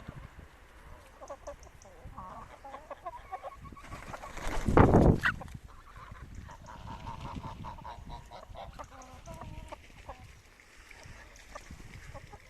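A mixed flock of chickens and geese calling: scattered clucks and short honks. A brief loud rush of noise comes about four to five seconds in.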